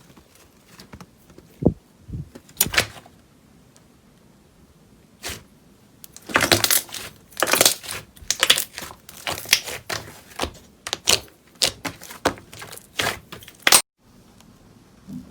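Slime being squeezed and poked by hand, making irregular sticky pops and clicks. They come sparsely at first and crowd together from about six seconds in.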